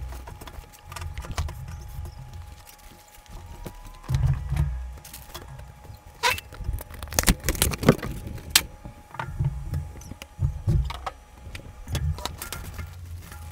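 Handling noise of flat-pack cabinet parts: bumps, knocks and scrapes as wooden panels and a glass-panelled door are shifted and laid down on a table, with a run of sharp knocks and clicks about midway.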